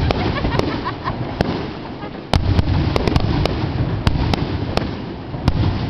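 Fireworks grand finale: a rapid string of sharp bangs and crackles over a dense, continuous low rumble of booms. A heavier volley breaks in suddenly a little over two seconds in.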